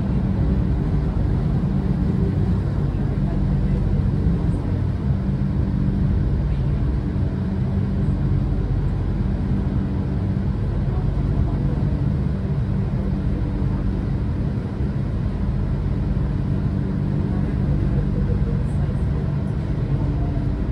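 Steady running rumble of a moving tram, with an even low motor hum and no change in speed.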